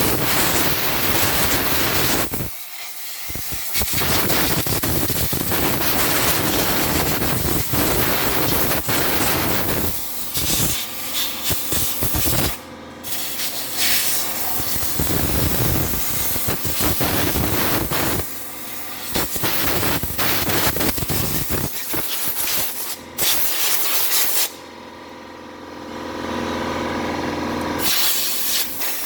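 Compressed-air blow gun hissing in long blasts with a few short breaks, blowing grit out from between a rear brake disc and its dust shield.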